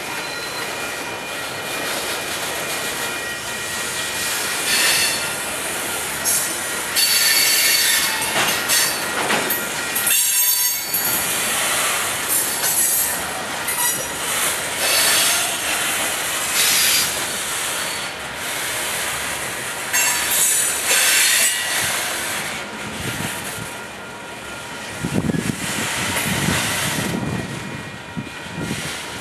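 Freight cars rolling slowly past on the rails, their steel wheels squealing and screeching against the rail in repeated stretches over a steady rolling rumble.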